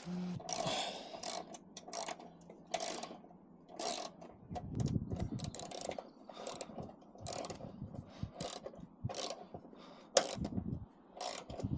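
Ratchet spanner tightening the awning's mounting bolts: a string of short clicks, roughly one every half second to second, with some low knocks in between.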